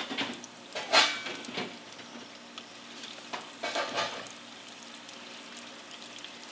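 Hot oil in a deep fryer set to 350 degrees sizzling around breaded rabbit pieces as they go in, a steady hiss with louder flare-ups about a second in and again around three and a half to four seconds.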